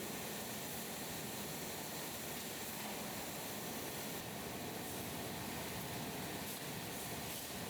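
Steady rushing background noise, even in level throughout, with no distinct events.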